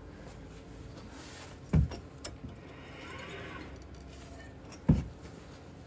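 Two dull knocks about three seconds apart, with a light click between, as the front steering knuckle and brake assembly are turned and handled by hand.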